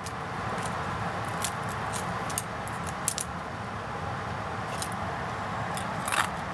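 Light, irregular clicks and crackles of baked apple chips being picked up and knocking against each other on a paper towel, over a steady background hiss.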